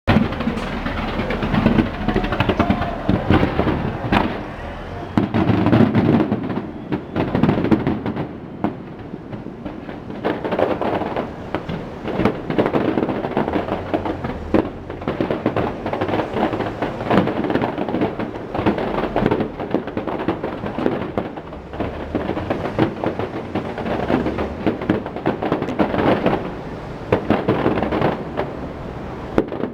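Fireworks display: aerial shells bursting one after another in quick, irregular succession, with low booms and sharp cracks running together.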